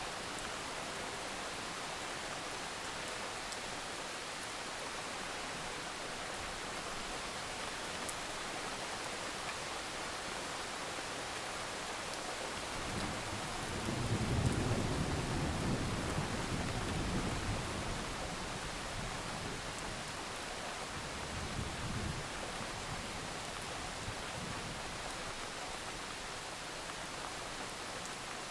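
Steady rain falling, an even hiss, with a low roll of distant thunder swelling about halfway through and a smaller rumble a few seconds later.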